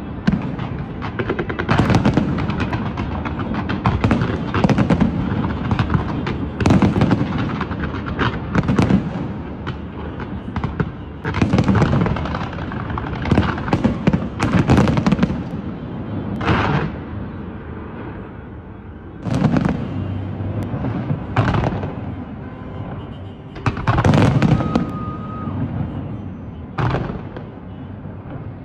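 Fireworks display: repeated bangs and crackling bursts of aerial shells, coming in clusters every second or two.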